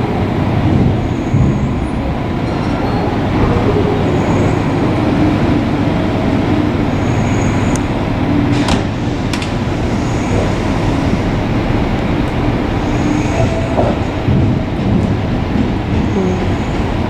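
Electric train running on the line, a steady rumble, with two brief sharp clicks about nine seconds in.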